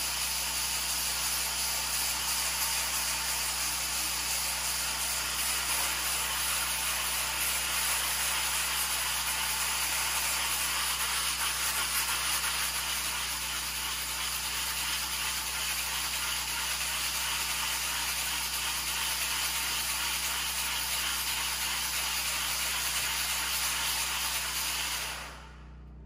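Pioneer Eclipse electric floor machine running with a concrete prep tool, grinding a concrete floor with a steady hissing scour over a low motor hum. It cuts off near the end.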